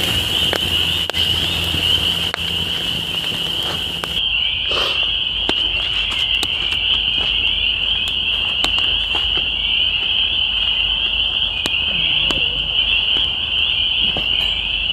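Dense chorus of frogs calling from the pond, a continuous high-pitched peeping, with a few sharp clicks scattered through it.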